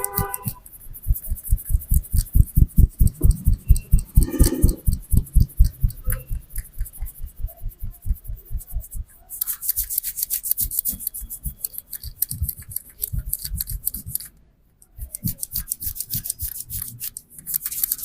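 Percussive head massage: a barber's hands striking a client's head and shoulders in a fast rhythm, about six dull thuds a second, then a run of quicker, lighter, sharper slaps after a short break.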